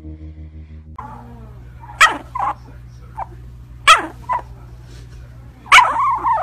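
A sleeping puppy yipping and barking in its sleep: several short, sharp yips in rough pairs, then a longer call that falls in pitch, over a low steady hum.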